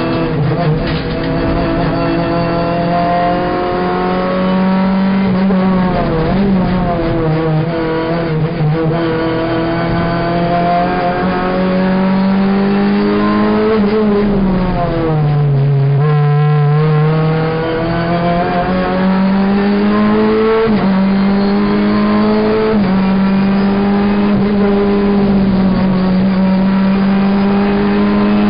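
Renault Clio Cup race car's engine heard from inside the cabin at racing speed, its pitch climbing through each gear and stepping at the gear changes. Around the middle the engine note falls away under braking and a downshift, then climbs again as the car accelerates hard.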